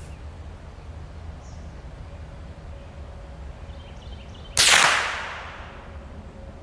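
One shot from a Marlin Model 60 .22 LR semi-automatic rifle, a single sharp crack about four and a half seconds in, with a tail that fades over about a second.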